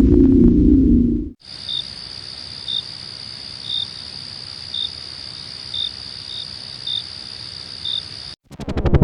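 Crickets at night: a steady high-pitched trill with a separate short chirp about once a second. It follows the tail end of a low droning hum, which cuts off about a second and a half in. The insect sound itself stops abruptly near the end, where a loud sound with a rapid pulse begins.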